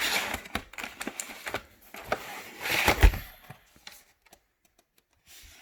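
Cardboard packaging being handled and opened: a run of clicks and rustles, with a thump about three seconds in, then it goes quiet.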